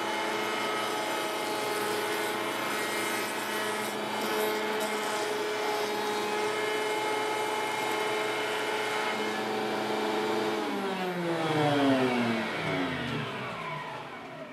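Table-mounted router running steadily while a rabbet is cut along the edge of a panel with a bearing-guided bit, then switched off about ten seconds in, its pitch falling smoothly as the motor spins down.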